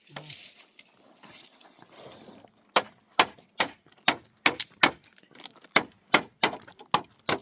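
A soft rustling scrape, then rapid sharp blows on wood, about two to three a second, uneven in spacing and strength, as timber is worked by hand.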